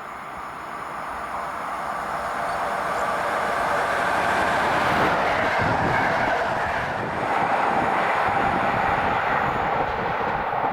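A train approaching and passing on the rails, its running noise building over the first few seconds and then staying loud and steady.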